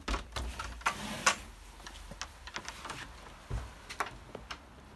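A door being opened and someone stepping through, heard as a string of light clicks and knocks over a faint low hum.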